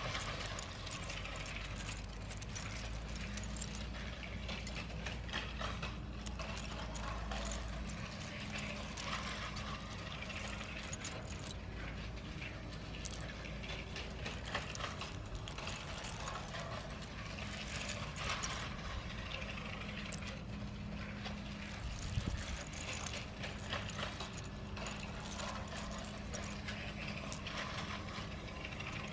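LEGO train running on plastic track: a steady, dense clicking and clatter of small wheels and gears.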